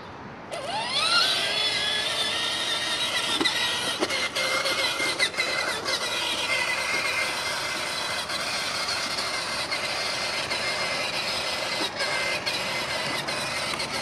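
Electric drive motor and gearbox of a child's battery-powered ride-on ATV whining as it drives. The whine rises in pitch about half a second in as it pulls away, then holds steady.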